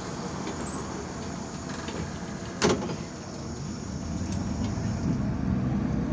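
MAZ 203 city bus driving, heard from inside the passenger cabin: a steady engine and road rumble that grows louder over the last couple of seconds. A faint high whistle sounds in the first two seconds, and a single sharp knock comes about two and a half seconds in.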